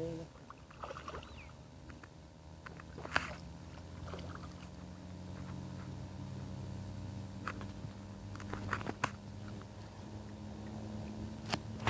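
A steady low engine-like hum that creeps slightly up in pitch, with a few sharp clicks.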